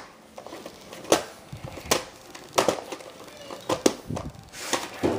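A VHS tape and its sleeve being handled: several sharp, irregular clicks and taps of plastic against the case and surface, with light rustling between them.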